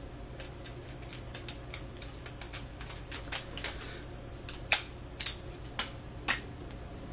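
Small plastic clicks and taps of a Wet n Wild lipstick tube being handled and turned in the fingers, with four sharper clicks in the second half.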